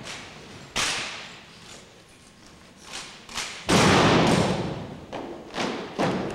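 Drill rifles and boots striking a hardwood gym floor in unison, sharp thuds echoing through the hall. There is one thud about a second in, a louder, longer clatter of many at once near four seconds, and two smaller ones near the end.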